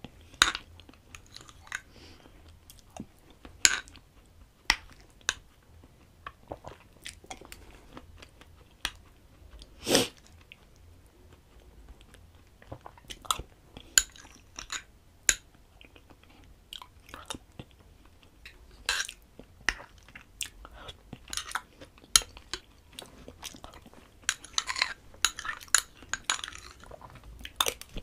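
Close-miked eating of rice kheer: wet chewing and lip smacks, with a metal spoon clicking and scraping against a small glass bowl. The clicks come thicker near the end as the bowl is scraped out.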